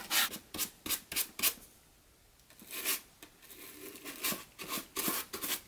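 Paintbrush bristles scraping and dabbing against hard, rough cured expanding foam in short scratchy strokes: a quick run of strokes, a brief pause about two seconds in, then more, fainter strokes.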